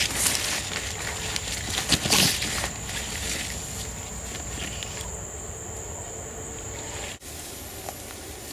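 Footsteps and leaves rustling as people push through dense jungle undergrowth, over a steady high-pitched insect drone; the background changes abruptly about seven seconds in.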